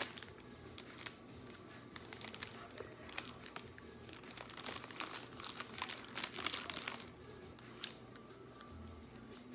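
Food packaging being crumpled and handled: a run of crinkles and crackles, busiest and loudest in the middle.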